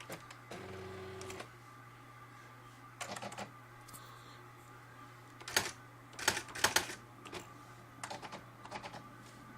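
Brother EM411 electronic typewriter in use: a short motor whir about half a second in, then irregular clusters of sharp typing clicks and clacks over a steady low machine hum.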